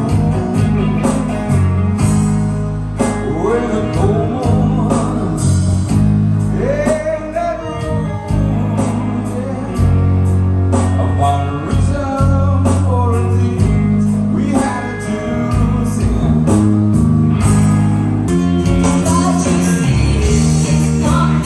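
Live band playing a song: a singer over acoustic and electric guitars and a bass guitar, with a steady beat.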